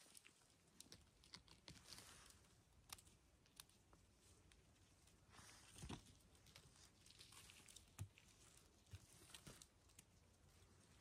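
Faint rustling and small snaps of gloved hands picking chanterelle mushrooms out of forest moss: scattered soft clicks, a couple of them sharper in the middle.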